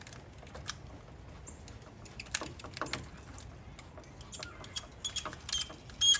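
Hand screwdriver turning a screw to draw a frunk-kit bracket's hook tight, with small irregular clicks and scrapes, bunched about two to three seconds in and again near the end.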